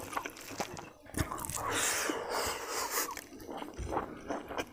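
Close-up eating sounds: a person chewing and smacking on a mouthful of rice eaten by hand, with many short wet clicks and squelches.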